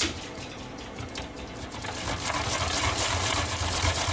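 Daikon radish rubbed quickly back and forth on a grater, a continuous rapid rasping scrape, softer at first and louder from about halfway through.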